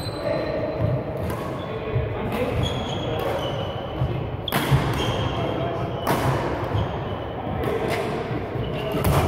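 Badminton rally: sharp racket strikes on a shuttlecock every second or two, ringing in a large sports hall, with short shoe squeaks on the court floor between them.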